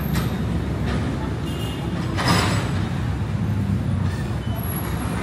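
City street ambience: a steady rumble of traffic, with a short hiss about two seconds in.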